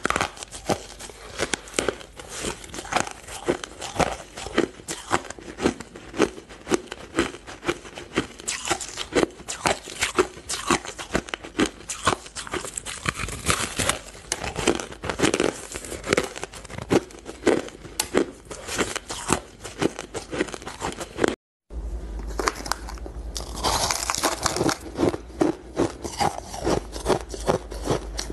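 Close-miked biting and crunching of powdery frozen ice, as a rapid run of crisp, crackly crunches. After a brief break about three-quarters of the way through, the crunching goes on over a steady low hum.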